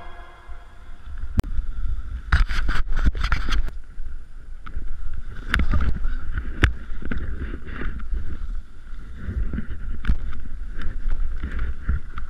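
Wind buffeting a GoPro's microphone during a ski run, a constant low rumble over the hiss and scrape of skis on snow. Sharp clicks and knocks come now and then, with a quick cluster of them about two to three and a half seconds in.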